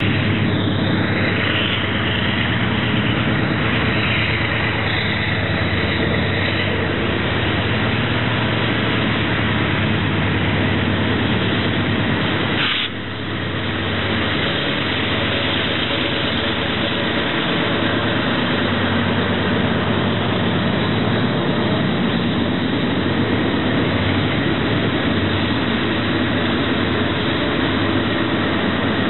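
GE Dash-9 diesel-electric locomotives, with 16-cylinder engines, running steadily under heavy load as they pull a long freight train up a grade and pass close by. One of the three lead units has failed and is dead.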